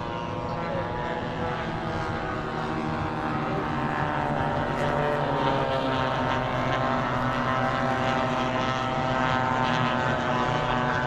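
Several radio-controlled model warbird planes flying at once, their motors and propellers droning as overlapping tones at different pitches that drift slightly. The sound grows louder over the first few seconds, then holds steady.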